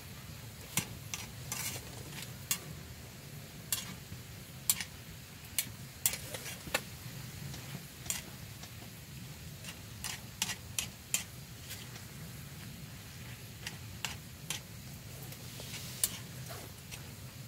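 A utensil scraping and clicking against a wide shallow pan as a stir-fry in red sauce is stirred, with the food sizzling over a portable gas burner. The clicks come irregularly, every second or so, over a steady hiss.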